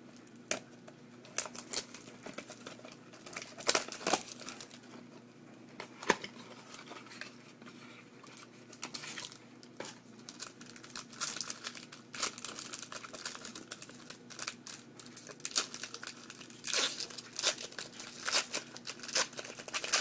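A trading-card pack wrapper being torn open and crinkled, with the cards and packaging handled in short, irregular rustles and clicks that grow busier in the second half.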